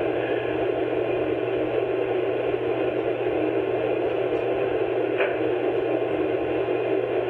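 Steady hiss with a low hum underneath: the background noise of the recording, with no other sound in it.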